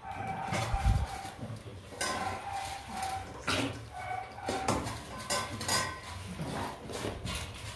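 Stainless steel food bowls clanking and ringing as Rottweiler puppies eat from them, their muzzles knocking the metal bowls against the board and floor, with a heavier thump about a second in.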